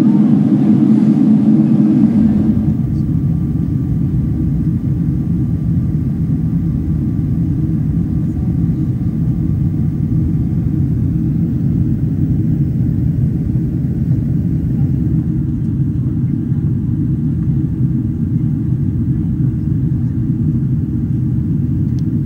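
Steady low roar of a Boeing 777-300ER's engines and airflow heard inside the passenger cabin. About two seconds in, the sound shifts: the higher part fades and a deeper rumble comes in, a little quieter.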